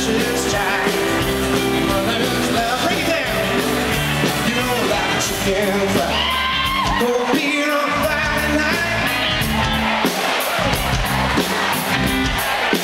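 Live country band playing: a male lead singer over acoustic guitar, electric guitar and drums.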